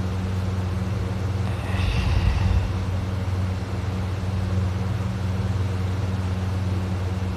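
Steady low hum throughout, with one faint snore from a sleeping person about two seconds in.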